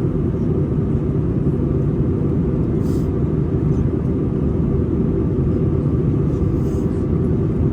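Airbus A320 cabin noise in flight: a steady low rumble of the jet engines and the air rushing past the fuselage.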